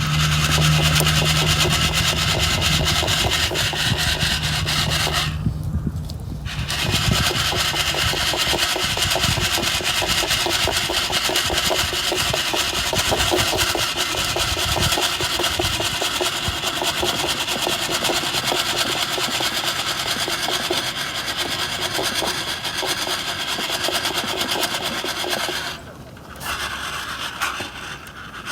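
Green coffee beans rattling and rasping in a mesh sieve that is shaken continuously over a bonfire while they roast. The shaking stops briefly about six seconds in and again near the end.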